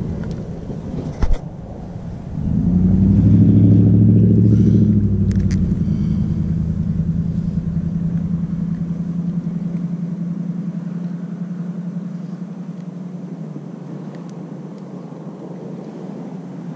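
A sharp click about a second in, then a motor's steady low drone that swells up about two seconds in and slowly fades away as it passes.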